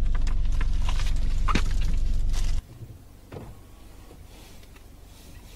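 Low rumble of a car moving slowly, with scattered clicks and knocks. It cuts off abruptly about two and a half seconds in, leaving a faint steady background.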